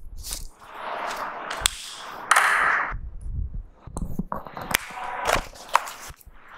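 Handling sounds of whiteboard markers: several sharp clicks and short rustles, the loudest rustle about two and a half seconds in.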